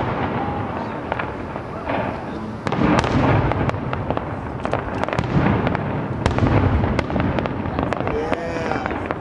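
Fireworks display: aerial shells bursting in quick succession with sharp bangs and crackling over a continuous low rumble, growing louder about three seconds in.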